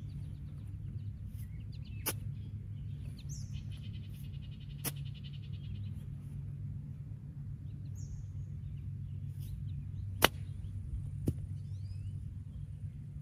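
A golf wedge strikes the ball on a short chip shot with one sharp click about ten seconds in, the loudest sound here. Fainter clicks come before and just after it. A bird trills in the background over a steady low outdoor hum.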